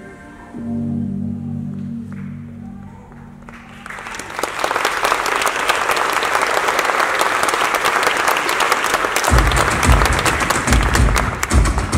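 A sustained low musical chord fades out over the first few seconds, then audience applause swells in and carries on to the end. From about nine seconds in, deep thumps sound every half second or so beneath the clapping.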